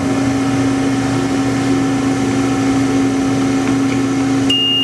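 Hyd-Mech H-14A horizontal bandsaw's hydraulic system humming steadily while the machine runs in manual mode with the vise being opened. A high electronic beep sounds near the end.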